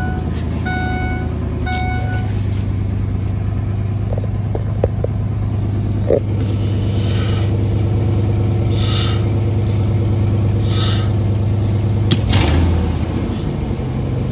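2003 Ford F350 pickup's engine idling steadily just after being started, with a repeating warning chime during the first two seconds. Several short hisses come about midway and a click follows near the end, while the brake pedal is pumped to check that the freshly replaced front calipers give a firm pedal with no air in the lines.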